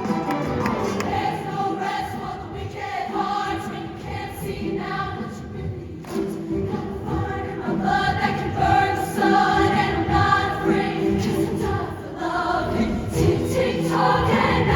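Show choir singing long held chords over a live band, the sound swelling louder in the second half.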